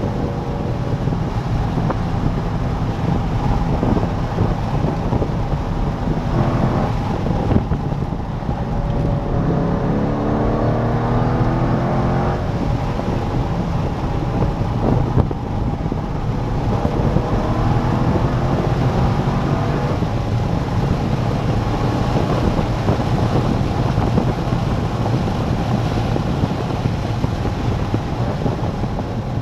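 C5 Corvette Z06's LS6 V8 driven hard around a track, with a steady engine drone mixed with wind and road noise. About ten seconds in, the engine note climbs in pitch for a couple of seconds as the car accelerates.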